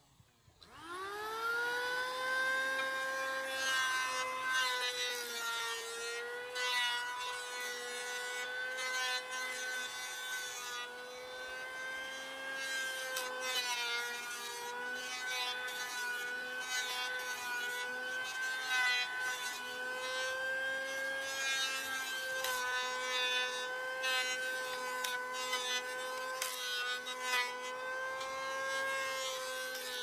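A power tool's motor spinning up within about a second to a steady whine and running on, its pitch dipping slightly now and then as it works wood, with faint scraping clicks.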